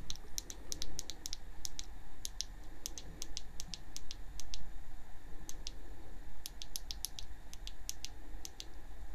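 Quick, irregular clicking of small buttons pressed over and over to step through a camera's on-screen exposure menu. A steady low hum runs underneath.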